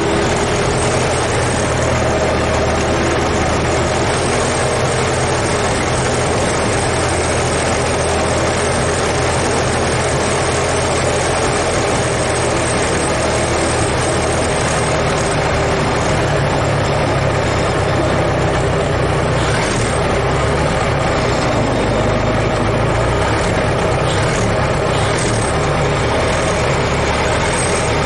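Ford Model T's four-cylinder engine running steadily.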